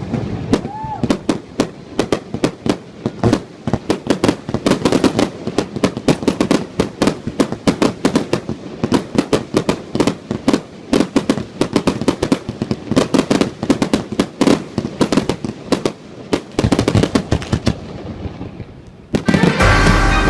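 Fireworks display: a dense, rapid string of cracks and bangs from aerial shells and firecrackers, with a short whistle about a second in, thinning out over the last few seconds. Music comes in near the end.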